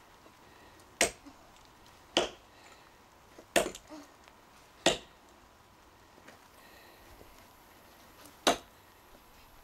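Cold Steel Trail Hawk tomahawk chopping into a hard, seasoned elm log: five sharp strikes, the first four about a second apart, then a pause of over three seconds before the last.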